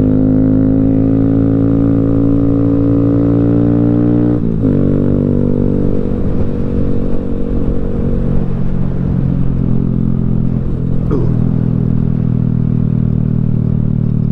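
Honda Grom's single-cylinder engine running under way. Its pitch climbs slowly for about four seconds, then drops at a gear change and settles into a steady cruise, over road noise.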